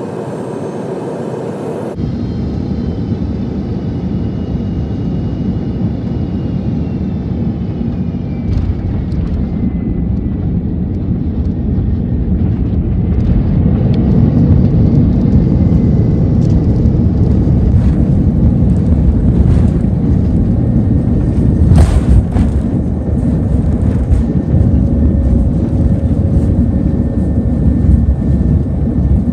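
Airbus A330-200 jet engines heard from a cabin window seat at the wing during landing: a whine falls steadily in pitch, then after touchdown the noise swells into a loud steady roar as reverse thrust slows the airliner on the runway. A single sharp clunk comes about two-thirds of the way through.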